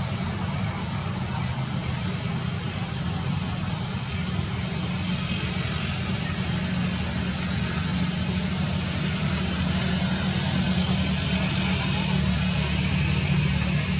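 Steady low hum of an idling engine, with a constant high-pitched whine above it.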